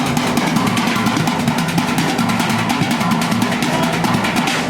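Upbeat music with a fast, steady drum beat, starting right after a count-in.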